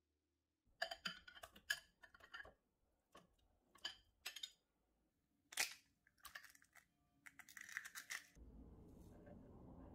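Kitchen prep handling sounds: irregular clicks, knocks and short rustles. A faint steady low rumble sets in about eight seconds in.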